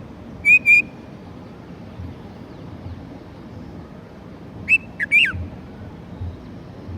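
Red-vented bulbul calling: a quick pair of short, high whistled notes about half a second in, then three more notes around five seconds in, the last sliding down in pitch.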